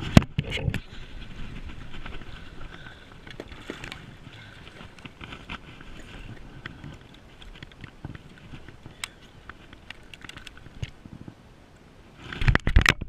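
A fishing reel being wound in steadily while fighting a largemouth bass, with scattered clicks and splashing as the fish thrashes at the surface. Several loud bumps and knocks near the end as the fish is landed.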